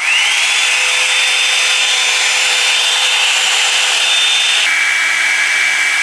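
Revlon One Step hair dryer brush switched on: its motor spins up with a rising whine, then blows steadily with a high whine over the rush of air. About three-quarters of the way through the whine drops in pitch as the speed setting is changed.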